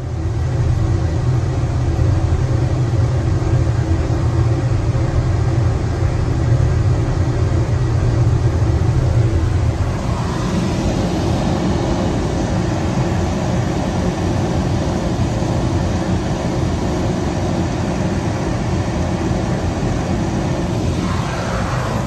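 Weil-McLain 78 Series boiler's dual-fuel power burner firing on gas, its blower and flame making a loud steady rush with a deep rumble. About ten seconds in, the rumble eases and the sound evens out.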